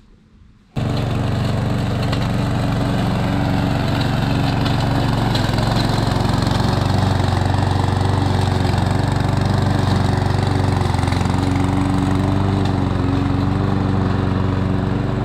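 A small petrol engine running steadily at a constant speed, starting abruptly about a second in.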